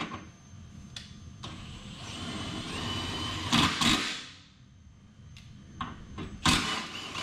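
Cordless impact wrench spinning a Prius subframe bolt for a few seconds, hammering hardest near the end of the run, then a second short burst; a few sharp metal clicks of the socket on the bolts in between.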